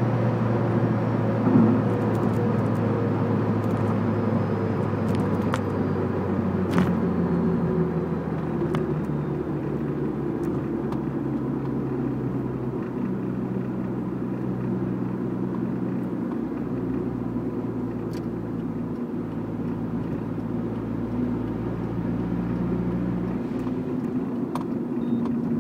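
Turbocharged car engine running at steady revs, with a faint thin high tone above the engine note. The owner hears a little high-pitched sound at mid revs and full throttle, but none at idle and no white smoke, and asks whether it is the turbo whining.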